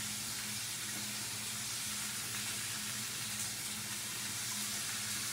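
Ribeye steak frying, a steady quiet sizzle with a faint low hum beneath it.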